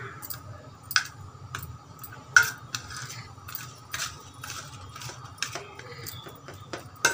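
Steel spoon scraping and clinking against a stainless-steel plate while stirring coarse ground nut powder. Irregular scrapes with sharp clinks, the loudest about two and a half seconds in.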